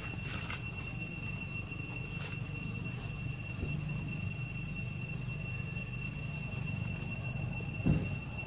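Insects in the trees giving a steady high-pitched drone, over a steady low rumble. A short, louder low sound comes near the end.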